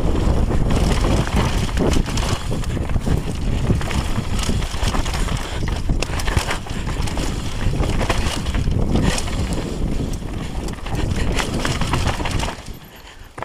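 Wind rushing over the camera microphone as a downhill mountain bike descends a rough, rocky dirt singletrack, with tyres on gravel and a steady run of rattles and knocks from the bike over the bumps. The noise drops briefly near the end as the bike slows into a turn.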